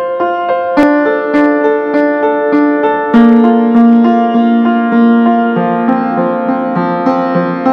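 Background music: a keyboard or electric piano playing a steady run of repeated notes, with a lower part coming in about three seconds in.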